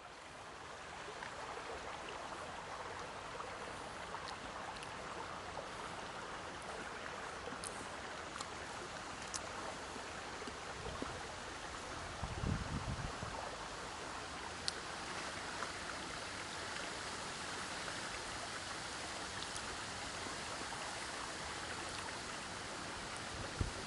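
Steady, even rushing noise of running water or wind, fading in at the start, with a brief low rumble about halfway through and a few faint clicks.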